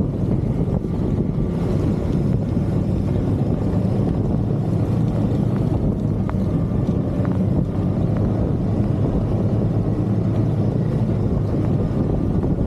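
Snowmobile engine running steadily while riding, with wind noise on the microphone.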